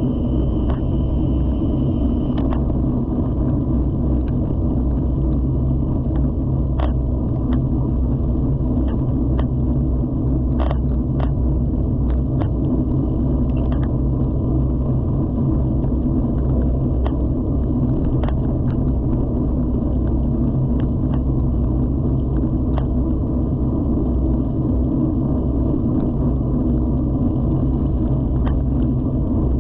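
Steady low rumble of a mountain bike being ridden, tyre and wind noise on the bike-mounted camera's microphone, with scattered clicks and rattles from the bike over bumps.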